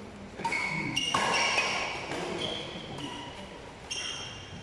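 Badminton rally: rackets striking a shuttlecock several times, with sneakers squeaking on the court.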